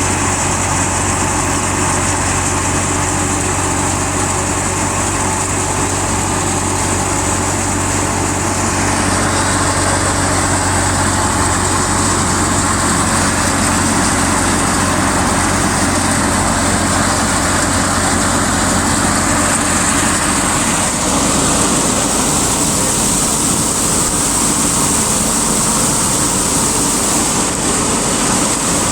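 Wheat-harvesting farm machinery running steadily: an engine's constant low hum under a loud, even mechanical din. The sound shifts in character about twenty seconds in.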